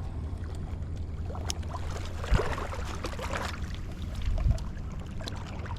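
Strong wind buffeting the microphone as a steady low rumble, with water lapping and splashing at the bank and a couple of knocks.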